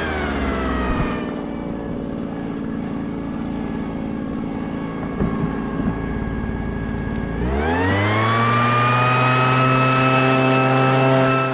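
Echo PB-400E backpack blower's two-stroke engine dropping from high speed to a low idle, idling for several seconds with a few small knocks near the middle, then revving back up in a rising whine about seven and a half seconds in and holding at full throttle.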